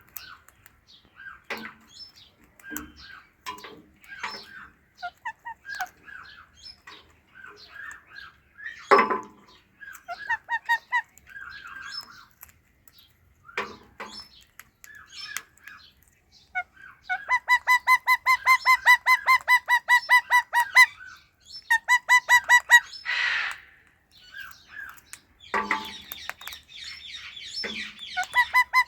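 Pet ringneck parrots chirping and calling, with a few louder harsh squawks among soft chatter. About two-thirds of the way through comes a fast run of repeated clear notes, about seven a second for some three seconds, and then a shorter run.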